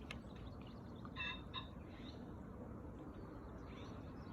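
A pheasant's crow: two short, harsh notes about a second in, with faint small-bird chirps in the background.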